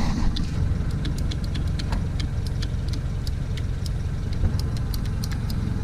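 Honda Civic EK's engine idling steadily, with scattered light ticks over the hum.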